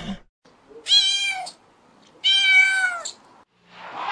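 Domestic cat meowing twice: two drawn-out calls about a second apart, each falling in pitch at the end.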